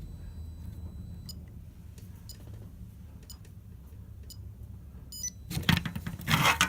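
Low steady electrical hum with faint ticks about once a second. About five seconds in there is a quick run of high electronic beeps, followed by loud clattering handling noise.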